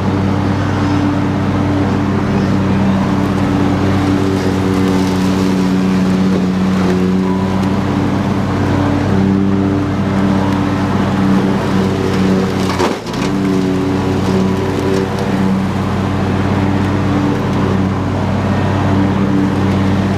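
Husqvarna YTH22V46 lawn tractor's V-twin engine running steadily with the mower deck engaged, cutting through tall grass and brush. The sound dips briefly about two-thirds of the way through.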